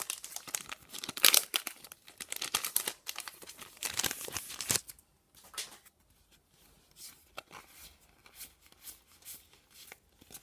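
A foil booster-pack wrapper crinkling and tearing open, busy and crackly for about the first half. After that come only faint rustles and light clicks of cards being handled.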